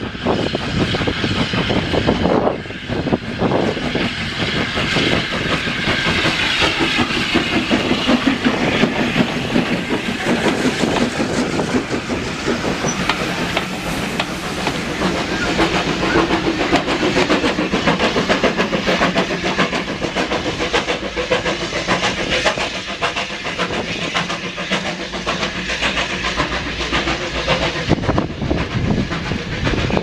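Two steam tank engines working a train of coaches past: exhaust beats and hissing steam, with the wheels clattering over the rail joints as the coaches roll by.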